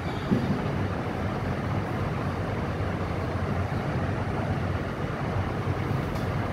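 Steady low rumble and hiss of background noise, with a brief low bump about a third of a second in.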